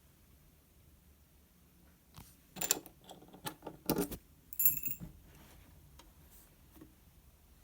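Clicks and clatter of an Everspring HA-28 alarm panel being handled, coming in a burst about two seconds in and lasting a few seconds, with a short high-pitched tone among them.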